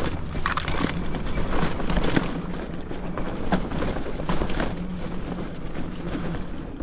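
Fat-tyre e-bike riding on a leaf-covered trail: the tyres roll with irregular crackles and knocks over a steady low hum from the Bafang hub motor.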